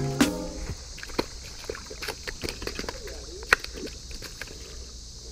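Quiet outdoor ambience at a creek bank: a steady high-pitched hiss with scattered small clicks and taps, the loudest about three and a half seconds in. The tail of a music track dies away in the first half second.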